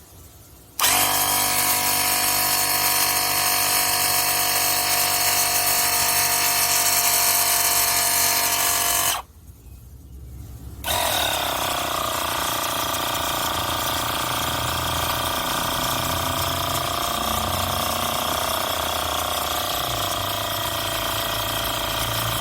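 Portable 12V air compressor motor starting up about a second in and running steadily, cutting off after about eight seconds, then starting again under two seconds later and running on steadily.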